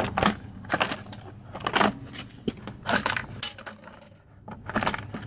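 Hard plastic engine cover of a Kohler XT675 mower engine clicking and rattling as it is worked loose and lifted off: a series of sharp knocks spread over a few seconds.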